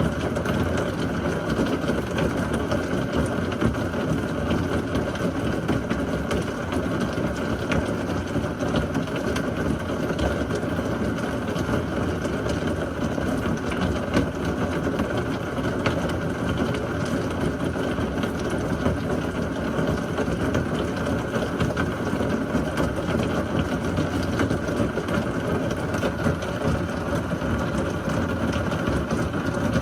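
Heavy thunderstorm rain falling in a steady downpour, with scattered ticks of single drops.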